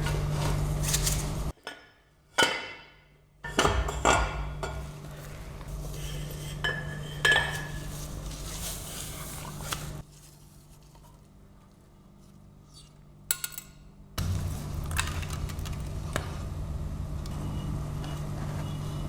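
Metal rotary-engine parts and hand tools clinking and knocking as the engine is taken apart, a few sharp clinks among quieter handling, over a steady low hum that drops out twice.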